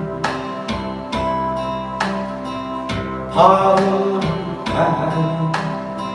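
Instrumental karaoke backing track of a Korean pop ballad: sustained chords renewed on a steady beat, with a melody line coming in about three and a half seconds in, ahead of the next sung line.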